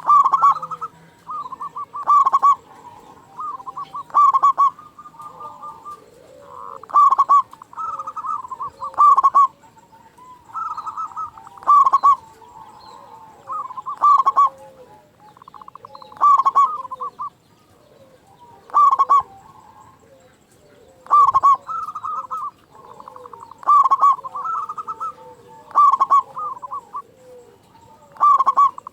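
Local male zebra dove (perkutut) cooing in full song with a big voice: a loud coo phrase repeated about every two seconds, with fainter, lower cooing in between.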